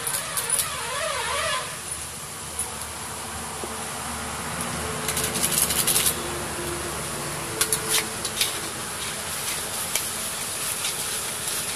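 Hot oil sizzling in a large wok over a fire. About five seconds in, something tipped from a packet into the oil sets off a burst of loud crackling, and near eight seconds a metal spatula scrapes and taps against the pan.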